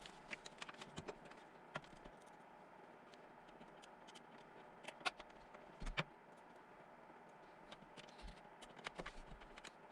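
Faint, scattered clicks and taps of small hardware and a screwdriver being handled inside a PC case during assembly. The two loudest knocks come about five and six seconds in, with a quick run of light clicks near the end.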